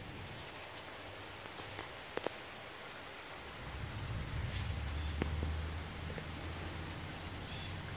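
Rain falling with scattered sharp drips, while ruby-throated hummingbirds give a few short, high squeaky chips. From about three and a half seconds in, a low hum of wings sets in as a hummingbird hovers at the feeder.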